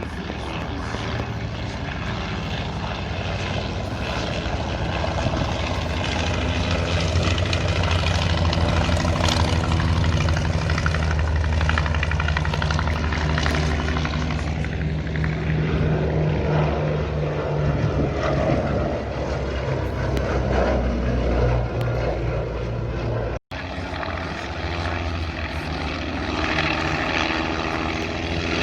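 Piston-engined propeller aircraft flying over, a steady engine drone that grows louder over the first several seconds and stays loud through the middle. About three-quarters of the way through it breaks off for an instant at a cut, then carries on.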